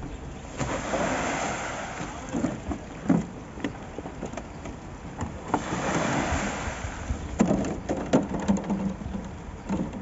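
Wet concrete sliding out of a tipped wheelbarrow and down a board chute into foundation formwork, a rushing scrape that comes in two surges, with several sharp knocks in between.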